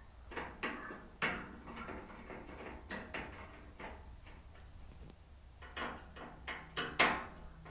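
Scattered small clicks and taps of a screwdriver and screw working through the bracket into the handle of a steel griddle hood. There are a few sharper metal knocks, one about a second in and another near the end.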